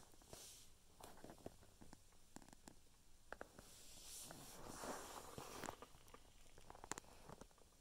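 Near silence: faint room tone with scattered soft clicks and light rustling.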